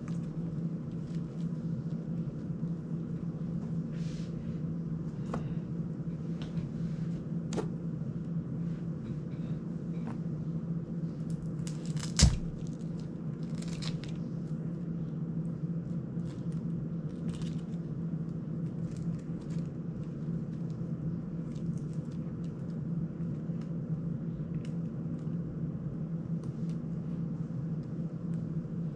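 Small clicks and taps of hands working on an FPV drone's frame and parts, with one sharp, louder click about twelve seconds in, over a steady low hum.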